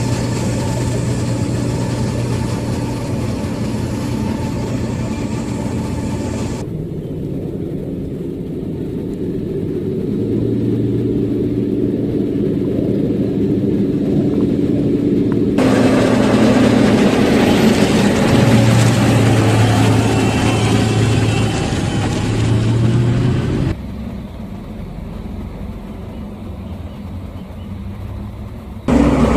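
Fendt Vario 930 tractor's diesel engine running steadily while pulling a slurry tanker and injector. It is loudest about midway as the tractor comes close, and sounds quieter and distant near the end.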